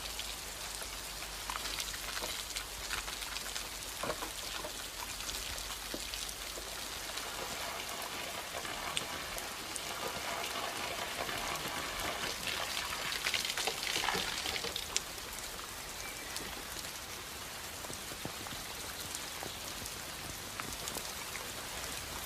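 Steady rain falling and pattering, with a few light knocks scattered through it and a louder spell of rain noise about two-thirds of the way in.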